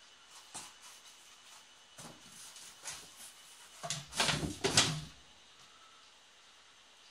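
A cat scrambling out of a cardboard box: a few soft scuffs of cardboard, then a loud rustling clatter of several knocks about four seconds in as the box tips over onto its side.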